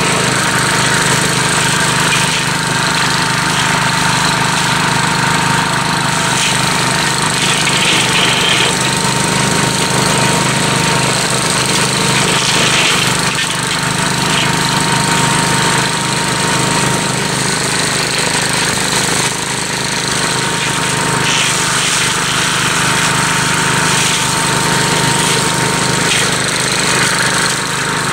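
Gravely Commercial 12 two-wheel walk-behind tractor running steadily under load, its brush hog mower cutting into dense pricker brush without skipping a beat.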